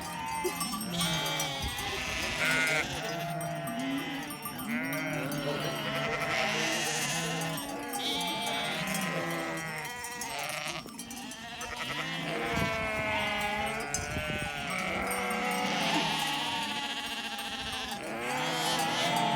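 A flock of sheep bleating, many calls overlapping one another without a break.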